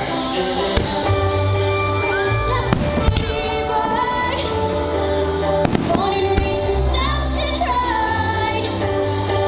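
Music with a woman singing, the soundtrack the fireworks display is set to, with a handful of sharp firework cracks cutting through it, two of them close together a little past the middle.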